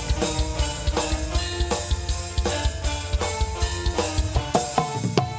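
Javanese jaranan dance music: drums beating a steady fast rhythm over a heavy bass, with sustained pitched instrument tones; the bass drops away near the end.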